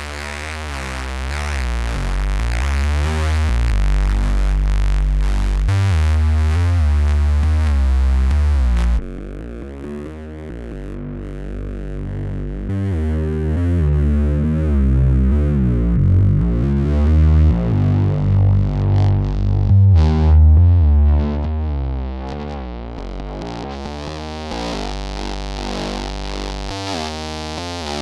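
Korg Monologue analog synthesizer playing an acid-style bass sequence through a Boss guitar distortion pedal, with heavy low end. About nine seconds in the bright top end cuts out suddenly, then opens back up over the following seconds.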